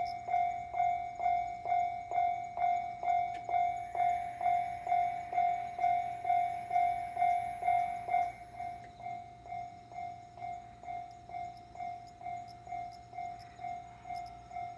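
Railway level-crossing warning bell ringing, an even clanging tone a little over two strikes a second; it drops noticeably in volume about eight seconds in.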